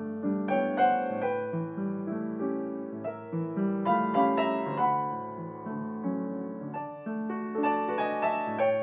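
Schimmel C116 upright piano being played: chords and a melody with notes struck and left to ring, in phrases that swell and fade, with new runs of notes coming in about a second in, around the middle and near the end.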